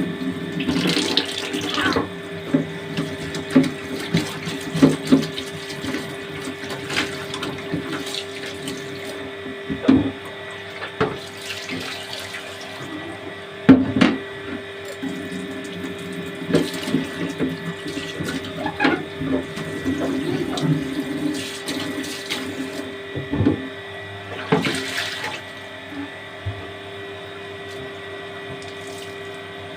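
Water running from a kitchen tap into a sink while a plastic fridge drawer is washed, with frequent knocks and clatters as it is handled. A steady hum sits underneath.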